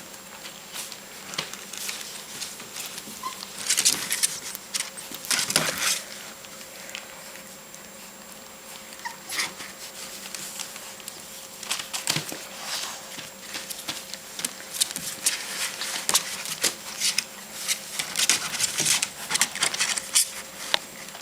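Four-week-old Rottweiler puppies scrabbling about, claws scratching and tapping in irregular bursts, busiest near the start and again toward the end.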